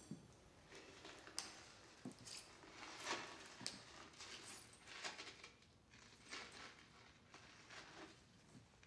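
Faint, irregular rustles, taps and clicks, a dozen or so soft sounds scattered through a quiet room.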